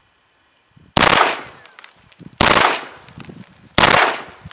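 Beretta 93R 9mm machine pistol firing in three-round burst mode: three bursts about a second and a half apart, each a sudden sharp report that dies away quickly.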